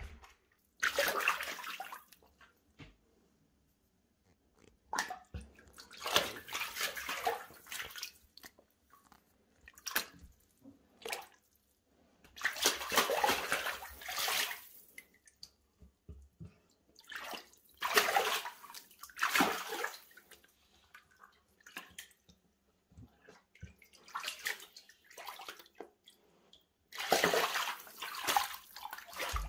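A puma pawing and splashing in shallow water on a tiled shower floor as it hunts small crucian carp. The splashes come in a string of spells, each one to three seconds long, with quiet gaps between.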